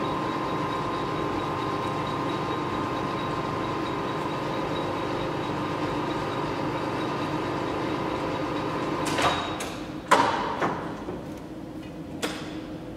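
Ernault Somua Cholet 550 lathe spindle running with a steady hum. About nine seconds in there are several sharp knocks as the machine is stopped, and the running sound falls away.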